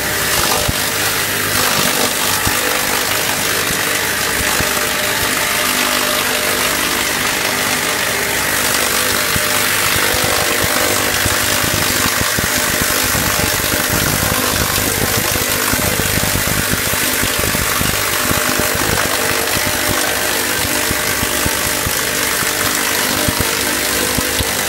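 Bowl cutter running steadily, its high-speed knives chopping meat into a paste in the turning stainless steel bowl: a loud, even hiss over a steady motor hum.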